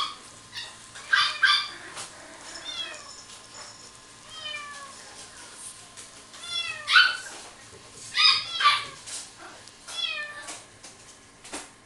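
Bernese mountain dog puppy whining: short, high-pitched cries that fall in pitch, repeated every second or two.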